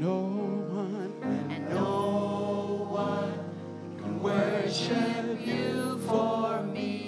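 A small praise team of women's and men's voices singing a slow gospel worship song together, over piano accompaniment. They hold long notes with a wavering vibrato.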